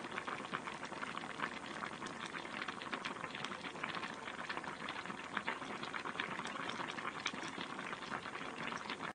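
Broth simmering in a pot: a steady bubbling made of many small pops.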